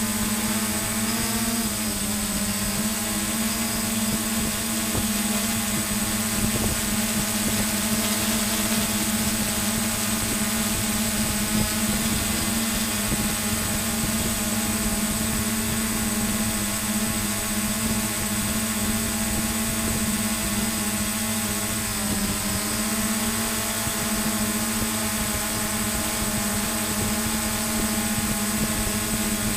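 Multirotor camera drone hovering, its motors and propellers giving a steady buzzing hum with a thin high whine above it. The pitch dips briefly about a second and a half in and again about 22 seconds in, as the motor speed is trimmed.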